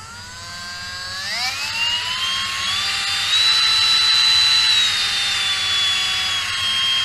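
A 10.8 V Dremel 800 cordless rotary tool's motor running with a high whine that rises in steps over the first few seconds, holds at its highest around the middle, then eases down a little. This shows the repaired potentiometer speed control now working above the lowest setting.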